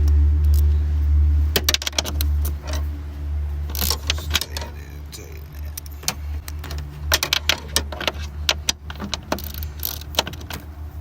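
Small socket ratchet and metal tools clicking and clinking in groups while bolts are worked loose, over a steady low hum.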